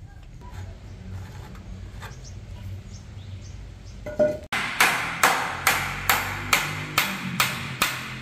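Hammer driving nails into the corner joint of a wooden cabinet frame, about two sharp strikes a second through the second half. Before that there are only a few light knocks of wood being handled.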